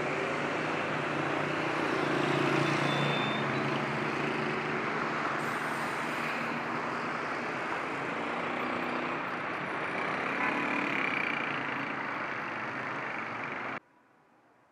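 Road traffic: cars and motorbikes passing, a steady wash of engine and tyre noise with engine hum rising and falling. It cuts off suddenly near the end, leaving near silence.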